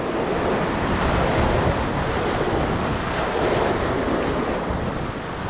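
Steady rush of whitewater around a kayak in a Class III rapid.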